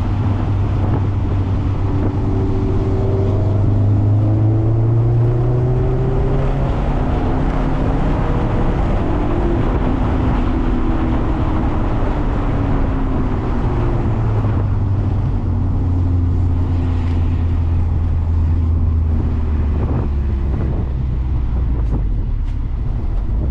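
Mazda MX-5 (ND) four-cylinder engine on a wet track, revving up and falling back several times as the car accelerates and slows for corners, over a steady hiss of wind and wet road.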